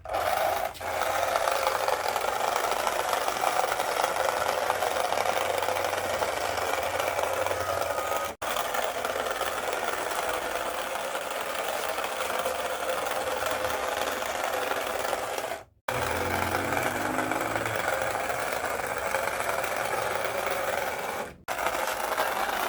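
Small electric motor whirring steadily, with short breaks where the clip is cut.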